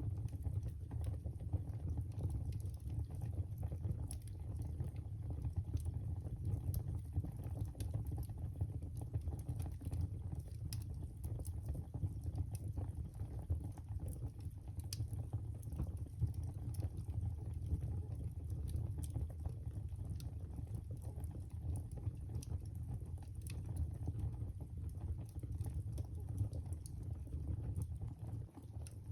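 Wood fire crackling in a fireplace: frequent small sharp pops and snaps, scattered irregularly, over a steady low rumble of the burning fire.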